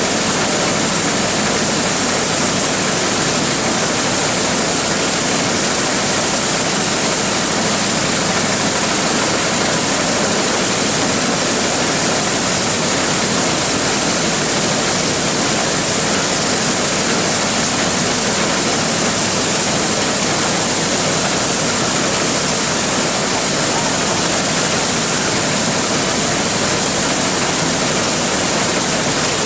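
Large corn sheller ('blower' corn-threshing machine) running steadily under work: a loud, even rushing noise with a strong high hiss and no change in pace.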